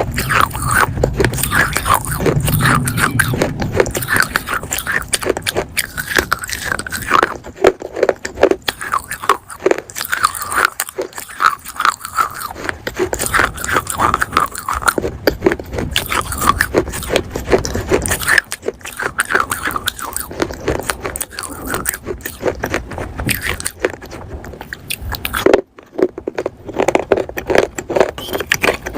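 Close-miked biting and chewing of pieces of baked clay pot: a dense run of sharp crunches and gritty scraping grinds between the teeth, with a brief pause near the end.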